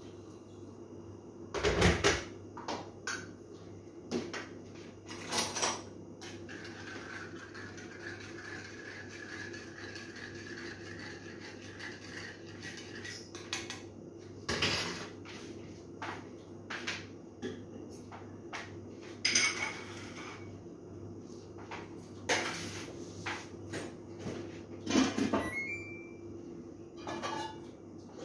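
Kitchen dishes and utensils clattering: a dozen or so separate knocks and clinks as things are picked up and set down, the loudest about 2 s in, near the middle and near the end, over a steady low hum.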